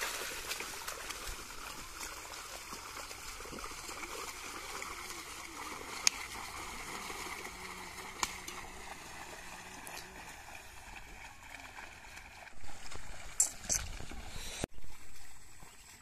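Water and mud sloshing and splashing as a pair of bulls draw a wooden plough through a flooded paddy field. The sound is loudest at first and slowly fades, with a few sharp clicks, then a cluster of louder knocks near the end before it drops suddenly to a quieter background.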